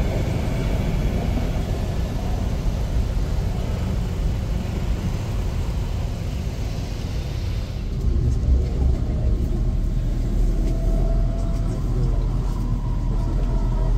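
Street traffic rumble as a Canada Line SkyTrain train moves off along the elevated guideway, its higher hiss fading over the first several seconds. About halfway through the sound cuts to a different, steadier low rumble.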